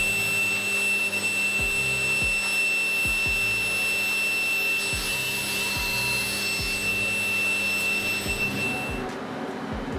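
Background music with a steady kick-drum beat over a steady high-pitched machine whine that cuts off about nine seconds in.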